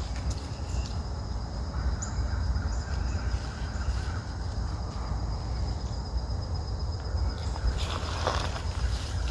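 Outdoor ambience on a walk: a low rumble on the microphone, a thin steady high insect drone, and a few soft ticks of movement. Near the end there is a short, louder sound from an animal or bird.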